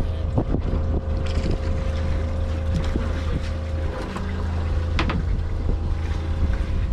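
Small boat's engine idling in a steady low drone, with wind buffeting the microphone and a few light knocks, the sharpest about five seconds in.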